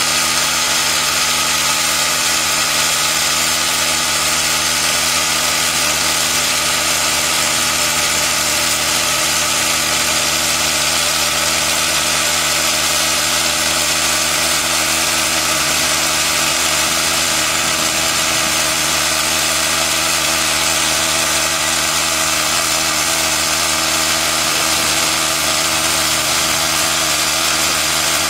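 Drillcom hydraulic drifter (top-hammer rock drill) on a drill rig, drilling rock: a loud, steady, unbroken mechanical din with no pauses.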